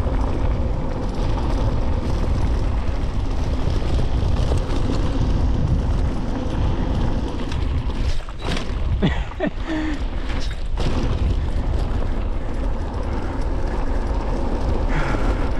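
Wind buffeting the camera microphone and knobby tyres rumbling over a dirt trail as a mountain bike rolls downhill at speed. The noise eases for a couple of seconds about halfway through, with a few faint short squeaks.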